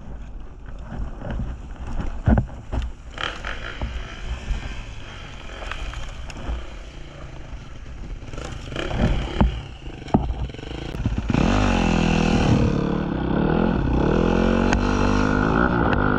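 Dirt bike engine putting along at low revs, with irregular knocks and clatter as the bike rides through brush. About eleven seconds in the engine revs up hard and stays loud, its pitch rising and falling with the throttle.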